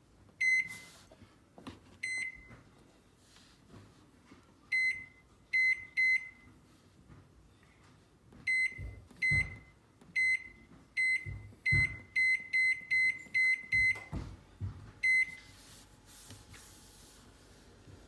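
Cookworks 800W microwave's keypad beeping, one short high beep for each button press while its clock is set: about eighteen beeps, a few spaced out at first and then a quick run of them near the middle. A few dull knocks sound between the beeps.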